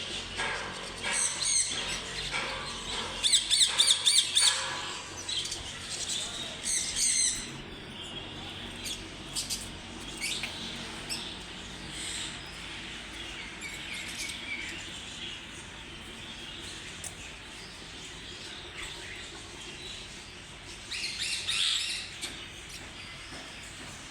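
Lovebirds chirping in quick, high-pitched twittering runs. The runs are loudest in the first few seconds and again near the end, with softer scattered chirps between.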